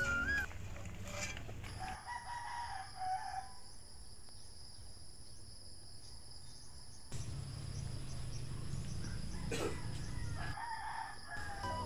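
A rooster crowing: one drawn-out call about two seconds in, lasting over a second. A steady high-pitched whine runs behind it.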